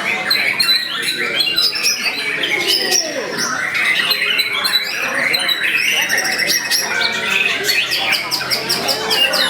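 White-rumped shama (murai batu) singing continuously: a dense run of whistles, quick chattering trills and harsh calls. This is the full, vigorous contest-bird song used as a bait recording to make other shamas answer.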